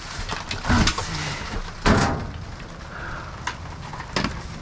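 A few knocks and clunks of salvaged items being handled and set down, the loudest about two seconds in and another near the end.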